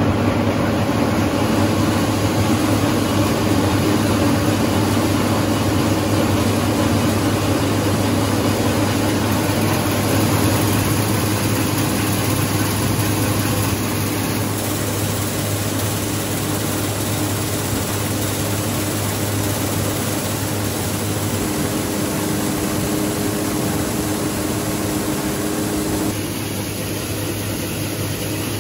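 Rice huller (paddy husking machine) running steadily with a low mechanical hum, paddy grain circulating through it as husking begins. The sound drops a little about 14 seconds in and again about 26 seconds in.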